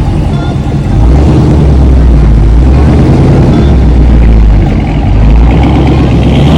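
Chevrolet Camaro SS's 6.2-litre V8 running under throttle with a deep, steady rumble, getting much louder about a second in and holding there.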